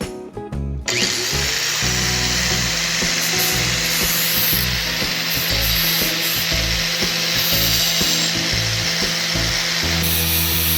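An angle grinder, clamped in a vise jig as a bench grinder, switches on about a second in and runs steadily with a loud, high hiss. Background music plays underneath.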